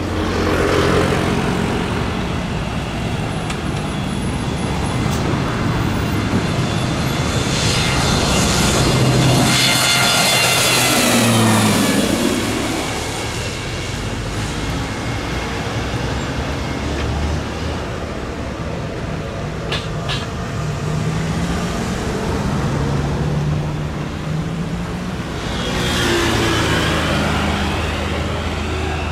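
Pilatus PC-12's single turboprop at takeoff power, growing louder as it rolls toward and past, with a high whine that drops sharply in pitch as it goes by about eleven seconds in. Near the end a de Havilland Twin Otter's twin turboprops swell in again.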